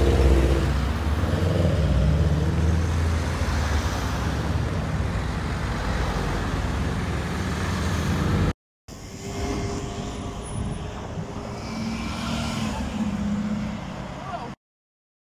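Loud, low engine rumble of vehicles pulling away in traffic, which cuts off abruptly about eight and a half seconds in. A quieter engine follows as a Mercedes-AMG GT roadster drives slowly past, and then the sound drops to silence just before the end.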